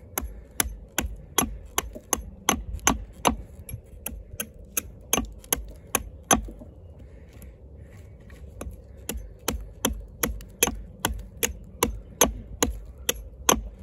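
Kobalt 14-inch camp axe with a hickory handle chopping at the end of a branch held on a stump, shaping it to a point. The steel bit strikes the wood about two or three times a second, pauses for about two seconds a little past the middle, then resumes.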